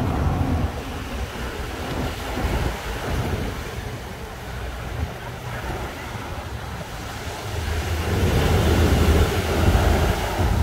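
Small ocean waves breaking and washing up a sandy beach, with wind buffeting the microphone as a low rumble. The surf grows louder about eight seconds in as a larger wave breaks.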